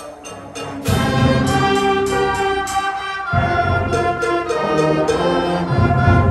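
A student concert band of flutes, saxophones, trumpets and tubas playing sustained chords; the full band comes in loud about a second in, and the low brass swells up again about halfway through.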